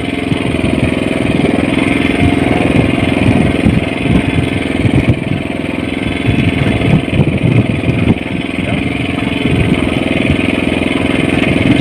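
Small engine on a fishing boat idling steadily, a constant low drone with uneven low knocks under it.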